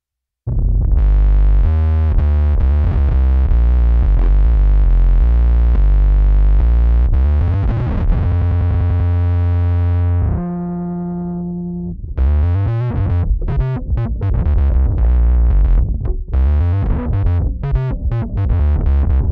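Electric bass played through an MXR Poly Blue Octave pedal, its added octaves giving a thick, synth-like tone, shaped by an Ampeg SGT preamp circuit. The playing starts half a second in with a run of notes, lets one note ring and fade about ten seconds in, then goes on with a quicker, choppier line.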